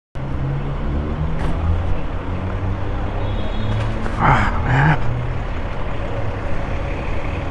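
Diesel engines of parked fire engines idling, a steady low rumble. Two brief loud calls cut through a little past the midpoint.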